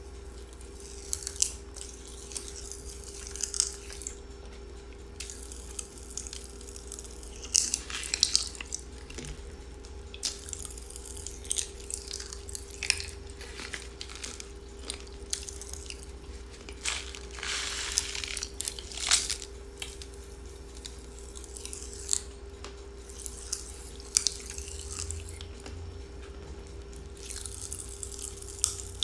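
Pop Rocks popping candy crackling and snapping in the mouth while being chewed, in irregular clusters of sharp little pops with occasional crunches. A steady faint hum runs underneath.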